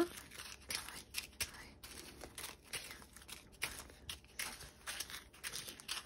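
Small plastic zip bags filled with diamond-painting drills crinkling as they are picked up and set down one after another, a run of short irregular crackles.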